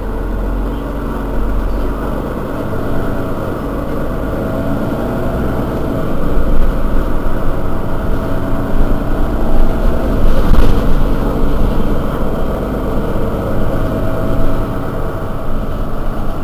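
Mercedes-Benz Citaro Facelift city bus's engine idling steadily while the bus stands at a stop, getting louder and less even about six seconds in.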